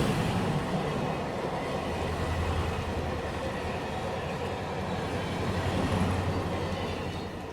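Train rumbling along the rails, a steady deep rumble that swells and then fades near the end.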